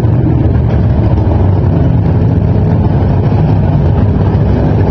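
Dirt modified race car's V8 engine running steadily at low revs, heard from inside the cockpit.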